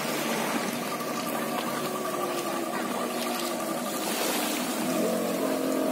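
A motorboat engine running steadily, its pitch rising about five seconds in as the boat speeds up to tow an inflatable banana boat, over small waves washing in the shallows.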